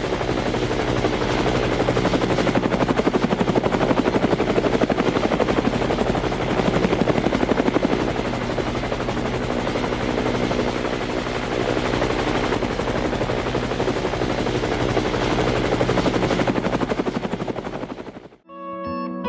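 Helicopter rotor running steadily, a fast even chop of the blades over an engine hum, which cuts off suddenly near the end. Plucked guitar music starts right after.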